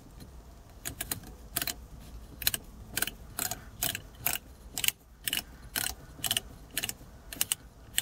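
Sharp clicks, about two a second at uneven spacing, as a thin nut is spun by hand down the threaded shift lever of a Ford Focus ST until it stops.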